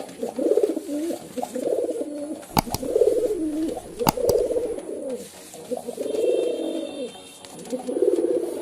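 Male pigeon cooing, one warbling coo after another with short gaps between phrases. Two sharp clicks cut in, about two and a half and four seconds in.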